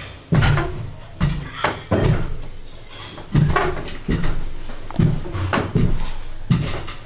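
Footsteps on stairs and a hard floor: a run of about a dozen heavy thuds at uneven spacing, roughly one every half second to second.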